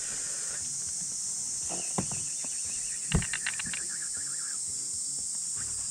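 Cicadas shrilling in a steady high drone from the wooded bank. A couple of sharp knocks come about two and three seconds in, and a quick run of short high chirps follows just after the second knock.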